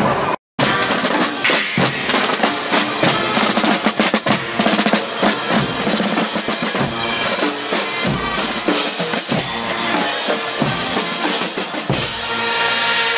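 Guggenmusik carnival band's drum section playing a marching beat on bass drum and snare drums, after a split-second gap. Near the end the brass comes in with held notes.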